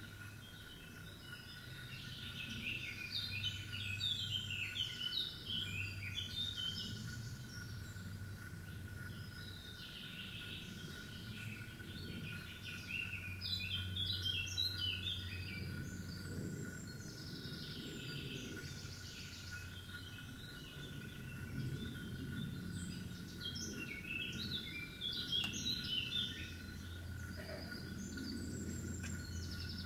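A songbird singing in bursts of quick, varied phrases, about five bursts a few seconds apart, over a steady thin high tone and a low hum.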